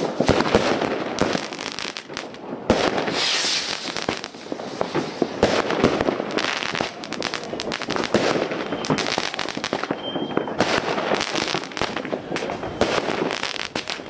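New Year's Eve fireworks and firecrackers going off in a near-continuous barrage: many sharp bangs and crackles in quick succession, with a longer hissing rush about three seconds in.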